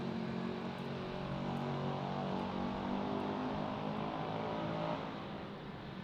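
A motor vehicle engine running steadily, its note shifting a little partway through and dying down about five seconds in.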